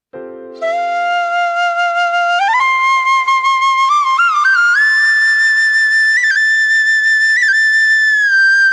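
Background music: a solo flute melody enters over a brief soft chord and climbs in steps to a long held high note.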